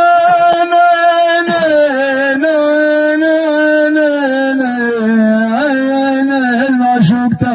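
A man's solo voice singing a Bedouin mawwal: long held notes with small ornamental turns, stepping down to a lower held note about five seconds in.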